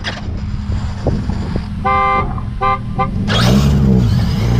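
A car horn honks three times, a longer toot then two short ones, as the drag-race start signal, over a steady engine idle. About three seconds in, engines rev up hard for the launch, their pitch climbing, dipping at a shift, then climbing again.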